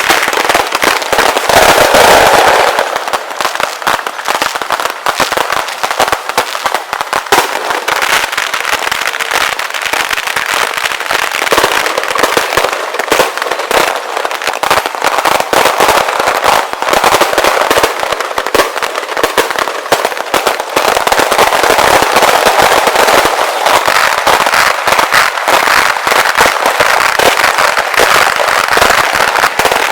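Fireworks show sped up into a dense, continuous barrage of bangs and crackling, the individual shots blurring into a rapid stream with little low boom.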